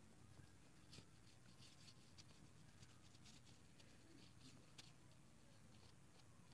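Near silence with faint, scattered scratchy ticks of a paintbrush working on the painting.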